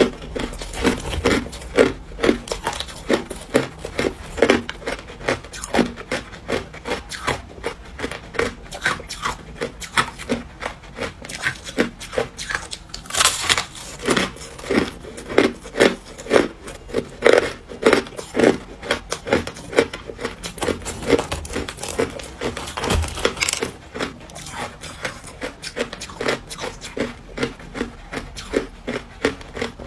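Crunching and chewing of hard frozen crushed ice, a run of crisp crunches at about two to three a second. Twice, about 13 seconds in and again about 23 seconds in, there is a sharper, louder crack as a fresh bite is taken from the frozen slab.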